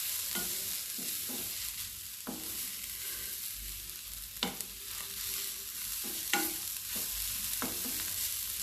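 Grated carrot frying in ghee in a pan with a steady sizzle as it is stirred, the utensil scraping and knocking against the pan at irregular moments. Its moisture has cooked off.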